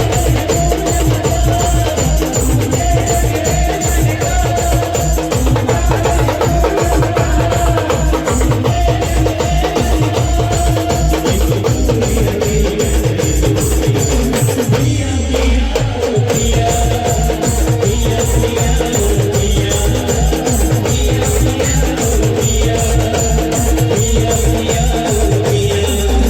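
Band music playing a Timli dance tune: a fast, even drum beat under a held melody line, with a short break in the pattern about halfway through.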